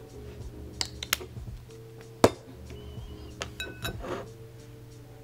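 Light clicks and knocks of a plastic measuring spoon and a squeeze tube of face cream being set down on a wooden tabletop beside a glass bowl, the sharpest knock a little over two seconds in. Faint background music runs underneath.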